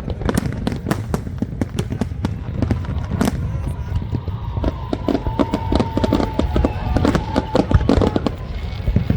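Aerial fireworks exploding in rapid, irregular succession, sharp bangs and crackles over a continuous low rumble, with a held whistle-like tone through the middle.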